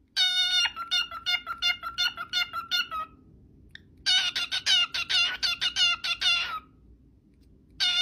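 Cockatiel calling in quick runs of short, repeated chirps, about three a second, two runs of two to three seconds each with a short pause between, and a third run starting near the end.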